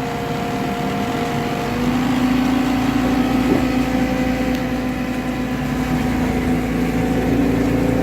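Skid steer engine running steadily with a constant humming drone. About two seconds in, its note changes and gets louder as the machine works the bucket into dirt.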